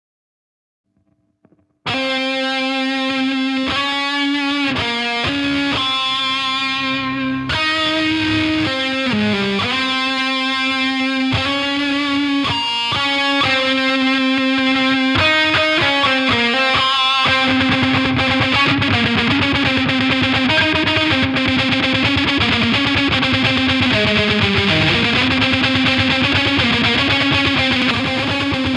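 Distorted electric guitar recording playing, starting about two seconds in: picked notes and chords at first, then a denser, sustained distorted wash from a little past halfway.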